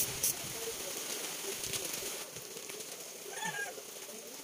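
Stick-welding arc crackling and hissing during a tack weld, stopping about two seconds in. A short, pitched animal call follows about three and a half seconds in.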